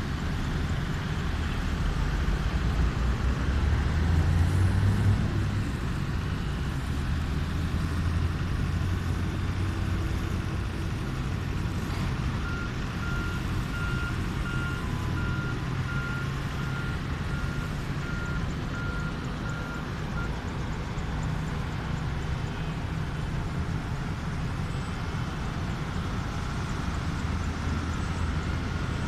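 Steady low engine rumble of motor vehicles, swelling slightly a few seconds in. Near the middle, a reversing alarm beeps at an even pace for about eight seconds.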